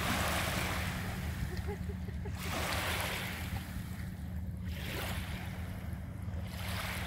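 Small waves lapping and washing onto a sandy shore in repeated hissing swells every second or two, over a steady low rumble of wind on the microphone.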